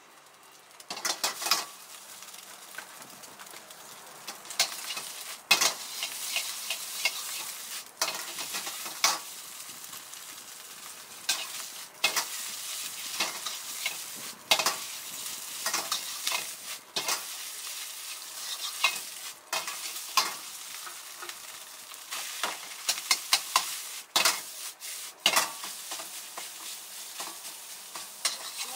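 Egg fried rice sizzling in a wok over a high flame, with a metal wok ladle repeatedly scraping and clanking against the wok as it is stirred. The frying hiss is steady, and the ladle strikes come irregularly throughout.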